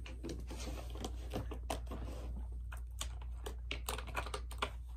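Small plastic Burt's Bees lip balm tubes clicking and rattling against each other as they are rummaged through, in a quick, irregular run of light taps.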